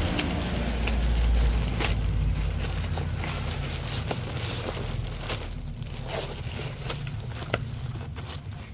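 Crinkling and clicking of a plastic-wrapped parcel being handled and opened, over a low rumble of handling noise.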